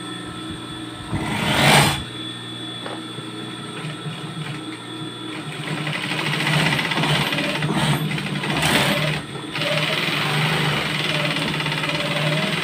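Industrial twin-needle lockstitch sewing machine stitching jacket fabric, over the steady hum of its motor. It runs in a short burst about a second in, then runs steadily from about halfway through, with a brief stop about three quarters of the way in.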